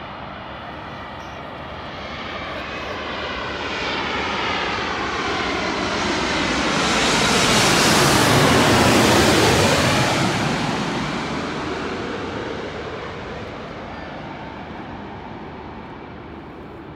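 Twin-engine jet airliner on final approach, landing gear down, passing low overhead: its engine and air noise swells steadily to a loud peak about halfway through, then fades as it heads away towards the runway.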